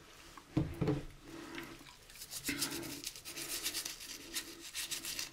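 An old toothbrush scrubbing a soapy rubber model-car tire, a fast run of scratchy bristle strokes starting about two seconds in. A brief thump comes about half a second in.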